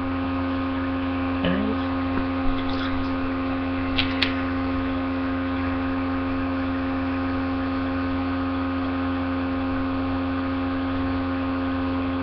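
Steady electrical mains hum, made of several constant tones, with a few faint clicks, the clearest about four seconds in.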